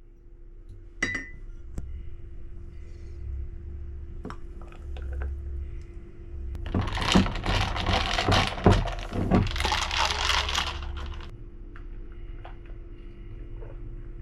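A glass clinks once, then about four seconds of busy rattling and clinking as a homemade matcha latte is stirred in its glass.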